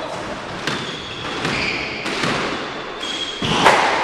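Squash ball being struck by a racquet and hitting the court walls, with a few sharp knocks, the loudest near the end, and short high squeaks of court shoes on the wooden floor.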